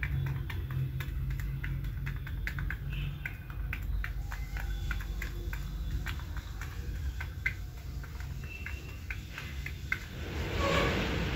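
Scattered quick clicks and taps with a few short high chirps over a steady low hum; about ten seconds in, a brief rustling burst as the chicken ruffles and shakes its feathers.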